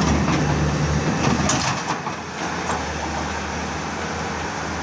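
Excavator diesel engine running steadily under work, with a few sharp clanks in the first three seconds.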